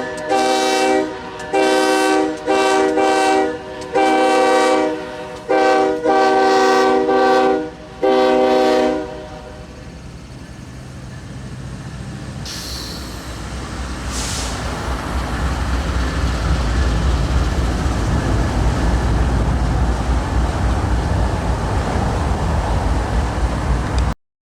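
A Union Pacific GE ES44AC locomotive's multi-chime air horn sounding a rapid string of short and longer blasts, a Mexican-style horn show, for about nine seconds. Then the horn stops and the rumble of the passing train builds, with a brief high squeal about thirteen seconds in.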